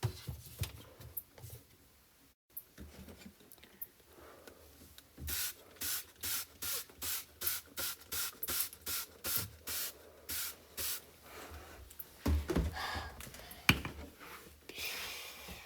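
Trigger spray bottle squirted over and over, about fifteen quick sprays at roughly two and a half a second, followed by a few knocks and handling sounds.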